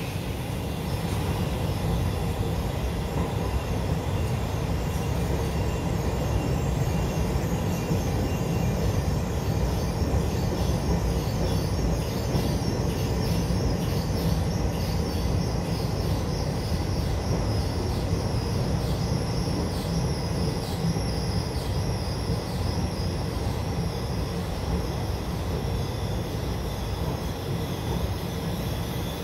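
Puyuma Express TEMU2000 tilting electric train pulling in along the platform and slowing: a steady low rumble of its wheels on the rails, with faint scattered ticks.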